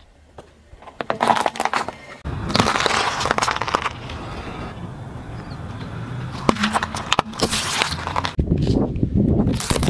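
A car tyre rolling slowly over food on asphalt and crushing it, with crunching and cracking over the low rumble of the tyre. First come short crackles as it runs over small orange sweets, then a long crunching crush of a cucumber, and another crush, of a lime, near the end.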